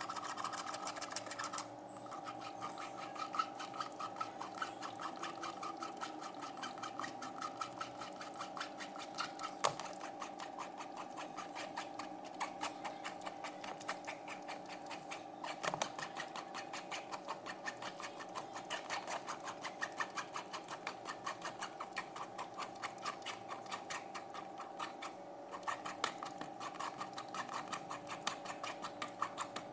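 Spoon scraping and stirring guava and pineapple pulp in a sieve to strain the juice into a plastic pitcher, a fast, even run of scrapes at about four a second, over a steady hum.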